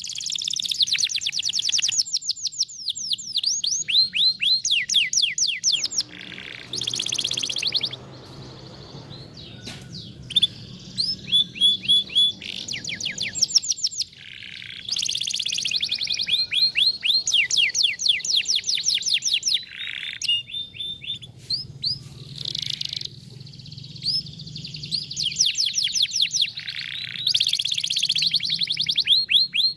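Domestic canary singing: long phrases of very fast repeated trills, each note a quick pitch sweep, broken by short pauses between phrases.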